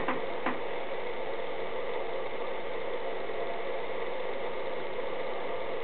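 Steady background hiss with a faint hum and no distinct event: the recording's room noise.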